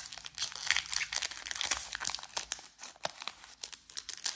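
Foil trading-card pack wrapper crinkling and tearing as it is pulled open by hand: a dense run of sharp crackles.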